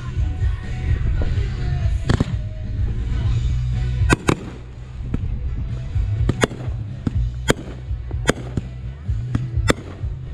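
Fireworks exploding: about ten sharp bangs at irregular intervals, coming closer together after the first few seconds, over a steady low rumble.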